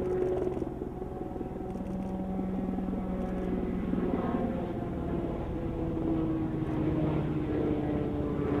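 Piasecki X-49A compound helicopter in flight: a steady droning hum of rotor and engines, with several tones that drift slowly in pitch.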